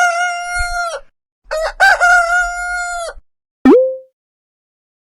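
Rooster crowing twice, each crow about a second and a half long and ending on a held note, followed about three and a half seconds in by one short, sharp pitched blip.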